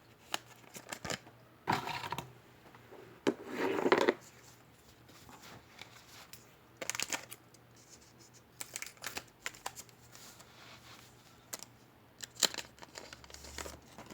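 A baseball card pack's wrapper being torn open and crinkled by hand, in short rustling bursts with scattered clicks and taps of the cards being handled; the longest rustle comes about three to four seconds in.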